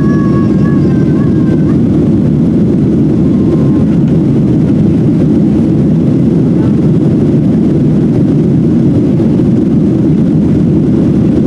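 Inside the cabin of a Boeing 737-700 airliner, its twin CFM56-7B jet engines and the rushing air make a loud, steady low rumble. A faint wavering high-pitched tone fades out within the first two seconds.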